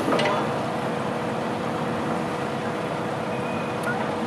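2003 Komatsu PC200-7 excavator running, its six-cylinder diesel working as the hydraulics move the boom and curl the bucket, with a steady whine held throughout.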